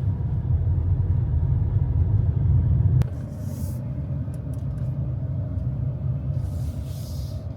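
Steady low rumble of a car's road and engine noise while driving on the highway, which drops suddenly about three seconds in and then continues more softly, with brief rushes of hiss.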